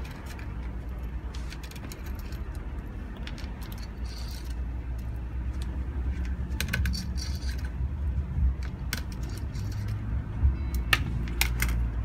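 Small metal clicks and clinks as a precision screwdriver undoes the heatsink screws on an Asus A45V laptop motherboard and the heatsink is lifted. The clicks are scattered and come thicker near the end, over a steady low hum.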